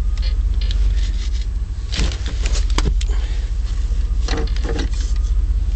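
1989 Chevrolet K2500's 5.7 L small-block V8 running with a steady low rumble. Several sharp clunks and clicks come from about two seconds in, as the truck is shifted into four-wheel-drive low.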